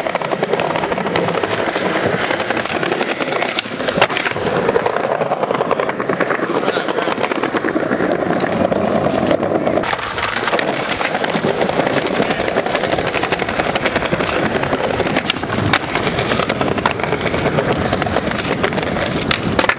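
Skateboard wheels rolling over smooth pavement, a steady rolling rumble, with a few sharp clacks of the board striking the ground during flatland tricks. The loudest clack comes about four seconds in.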